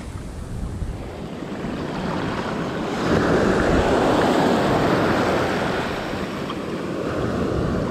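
Sea waves surging and washing up a beach, one wave swelling loud about three seconds in and easing off after a few seconds, with some wind on the microphone.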